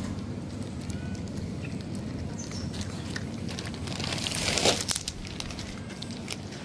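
A cat crunching dry kibble: a scatter of small crackly clicks over a steady low background hum, with a brief louder rush of noise that builds and cuts off about four and a half seconds in.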